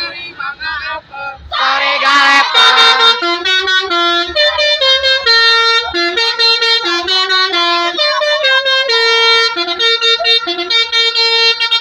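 Basuri musical bus horn playing a tune: a string of steady, held notes stepping up and down, starting about a second and a half in after some voices.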